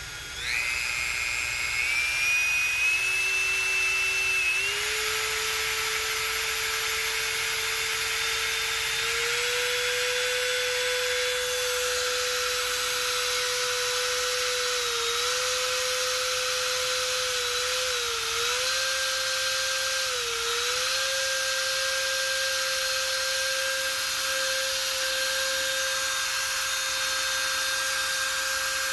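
Dremel 4300 rotary tool's motor running, fitted with a freshly replaced field assembly. Its whine steps up in pitch several times in the first ten seconds as the speed is turned up, then runs steadily with a few brief dips in speed, running normally again after the repair.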